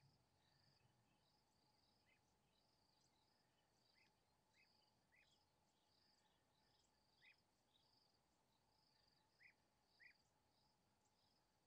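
Near silence: faint outdoor ambience with steady, evenly repeated insect chirping, cricket-like. A few short, sharper chirps stand out, the loudest two near the end.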